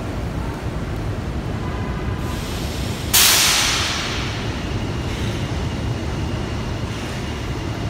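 R68A New York City subway train rumbling at the platform, with a sudden loud burst of air hiss from its brakes about three seconds in that fades over about a second.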